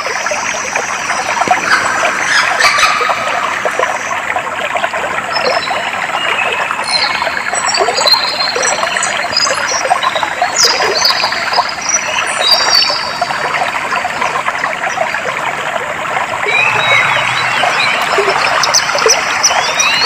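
Clear water trickling and flowing steadily, with small birds chirping over it, the calls coming most thickly through the middle of the stretch.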